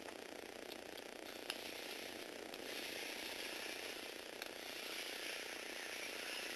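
Small electric motor driving the plastic gears of a Lego Technic robot: a steady mechanical whirring with a few sharp clicks, growing louder a few seconds in.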